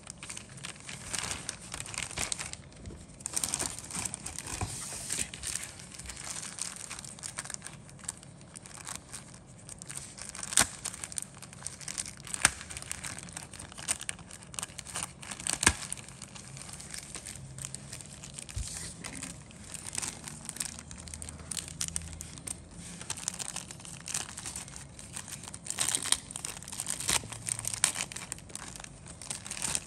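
Clear plastic bag crinkling and crackling continuously as it is handled and pulled open by hand, with sharp louder crackles scattered through; it stops abruptly at the end.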